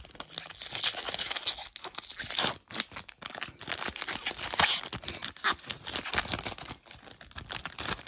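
Foil wrapper of a Topps Chrome trading card pack being torn open and crinkled by hand, with a dense run of crackling and several sharper rips.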